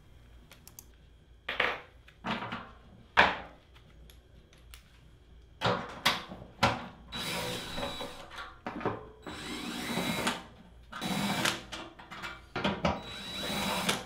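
Cordless drill with a 10 mm socket running in several short bursts, backing out the bolts that hold the air handler's blower motor in its housing. A few sharp knocks come before the drilling starts.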